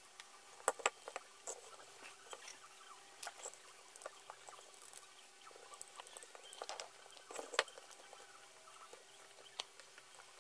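Scattered light clicks and knocks of small wooden toy parts being handled, as wooden wheels are pressed onto the toy pickup truck's dowel axles, over a faint steady hum.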